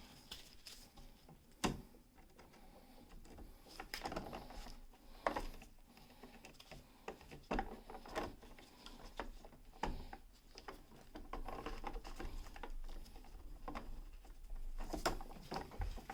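Pliers and wire being handled at a light switch: scattered small clicks, taps and scrapes as the ground wire is worked onto the switch's screw.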